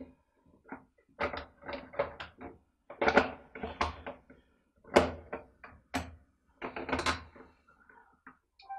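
Hard plastic knocks, clicks and scraping as the top cover of a Stihl 017 chainsaw is fitted over the air filter and pressed and fastened into place, in irregular handling clusters, loudest about five seconds in.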